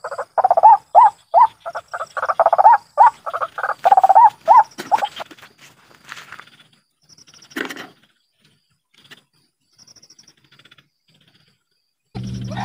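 White-breasted waterhen calling: a rapid series of short, loud calls, about three a second, that stops about five seconds in. A single knock follows a few seconds later.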